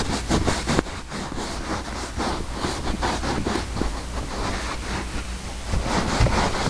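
Towel rubbing on truck carpet close to the microphone: a fast run of scratchy rubbing strokes.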